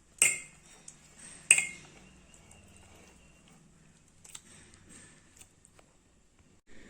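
Two sharp metallic clinks about a second apart, a metal kitchen utensil striking a metal vessel, each ringing briefly, followed by a few faint light taps.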